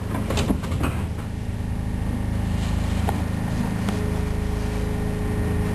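Subway car doors knocking shut, then the car humming and rumbling as the train starts to pull out, with a steady whine joining about four seconds in.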